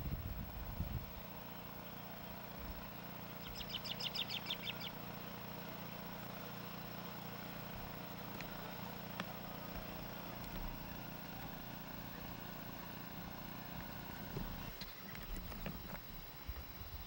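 A bird gives a rapid trill of short high chirps, lasting about a second and a half, about four seconds in, over a steady low background hum. A few faint clicks and rustles come near the end.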